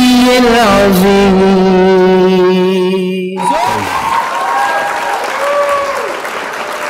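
A singer's voice holds a long final note of an Urdu devotional song over backing music, which cuts off abruptly about three seconds in. Audience applause follows.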